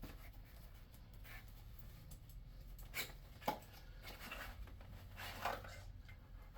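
Handling of diesel-heater parts and packaging: a couple of sharp clicks or knocks about three seconds in and a short rustle near the end, over a low hum.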